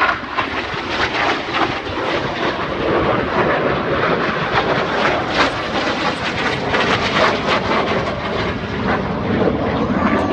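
Jet noise from BAE Hawk T1 jets flying a low, full-power pass: a loud, steady jet roar that holds for the whole stretch.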